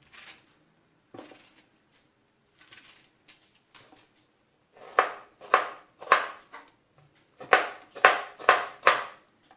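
Knife chopping strawberries into cubes: a few scattered light cuts, then from about halfway a steady run of sharp strokes, about two a second.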